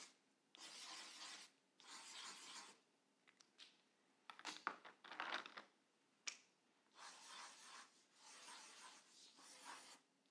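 Felt-tip marker drawing circles on paper: faint scratchy scribbling in strokes about a second long, repeated several times, with a pause and a few sharp clicks midway.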